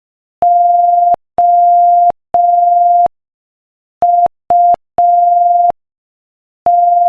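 Morse code at 5 words per minute, sent as a single steady beep tone keyed on and off. Three dashes, a pause, then dot-dot-dash spell the letters O and U, and another dash starts near the end.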